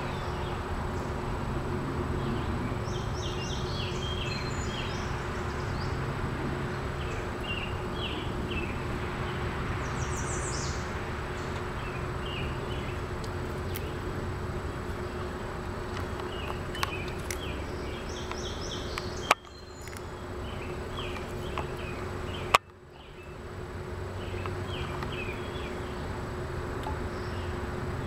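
Outdoor insect ambience: a steady buzz and hum with scattered short high chirps. Two sharp clicks in the second half are each followed by a brief dip in level.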